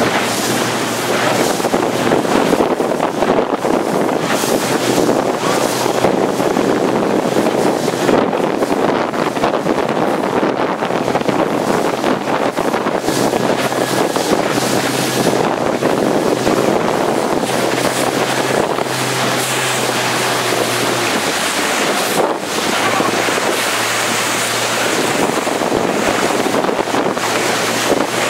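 Strong wind buffeting the microphone over rushing, splashing water at high speed on open water, with the low steady drone of the camera boat's engine underneath, which shifts in pitch about two-thirds of the way through.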